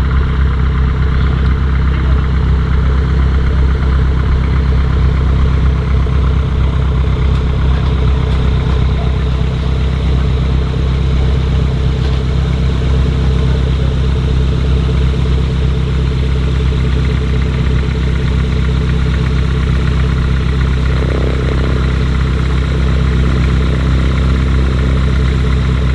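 Piston engine of a Diamond light aircraft running steadily at a constant speed.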